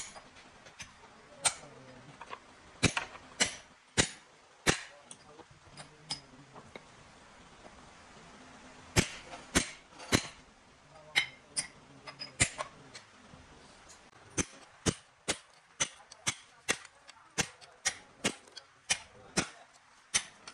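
Hammer blows ringing on steel truck drum-brake parts as the brake shoe is worked on. The strikes are scattered at first, then settle into a steady run of about two a second from around two-thirds of the way through.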